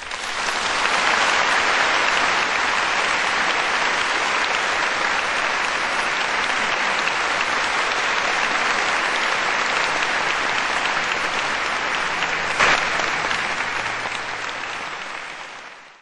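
Concert-hall audience applauding. The applause starts suddenly as the music ends, holds steady with one sharper crack about three-quarters of the way through, and fades out near the end.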